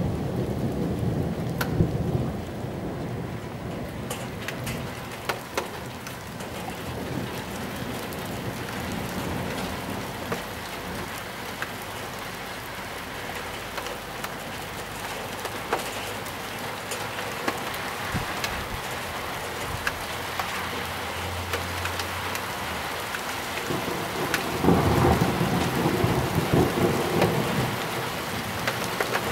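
Heavy thunderstorm downpour, rain pattering steadily with scattered drop ticks. Thunder rumbles low at the start and again louder about three quarters of the way through.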